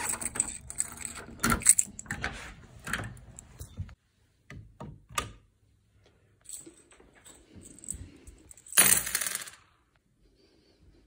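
A key ring jangling while a key is worked into a brass door lock and turned, a run of metallic jingles and clicks over the first four seconds. A few scattered faint clicks follow, then a louder burst of noise lasting under a second about nine seconds in.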